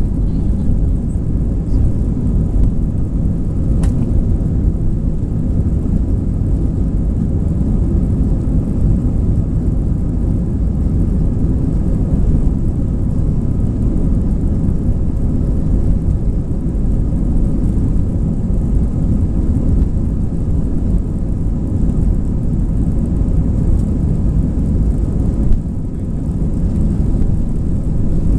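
Airbus A320 cabin noise from a seat behind the wing as the jet rolls along the runway: its IAE V2500 turbofans and the airflow give a steady, loud rumble with a faint steady hum. A single small click comes about four seconds in.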